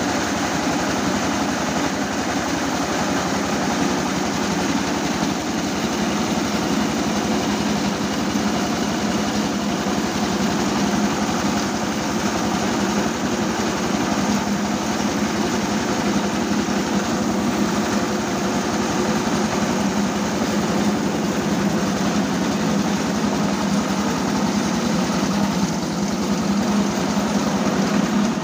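Homemade rice milling machine running steadily, its small engine driving the mill as milled rice pours from the chute into a metal bucket.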